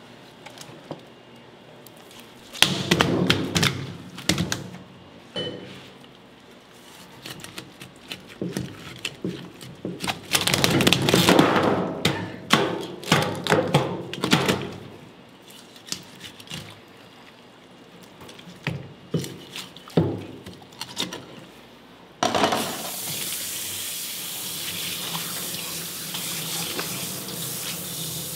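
Irregular knocks and thumps as a live olive flounder is handled and cut with a knife on a plastic cutting board. About two-thirds of the way through, a kitchen tap comes on suddenly and runs steadily, splashing over the fish on the board.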